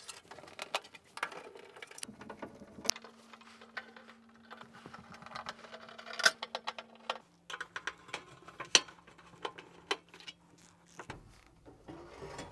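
Irregular small clicks, ticks and scrapes as a hand Phillips screwdriver undoes screws from a thin sheet-metal heater cover on a tumble dryer and the cover is handled, over a faint steady hum.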